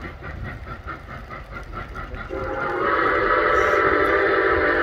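Milwaukee Road 4-8-4 steam locomotive 261 working hard, its exhaust beating rapidly at about five chuffs a second. About two seconds in, its steam whistle starts a long steady blast that is louder than the exhaust.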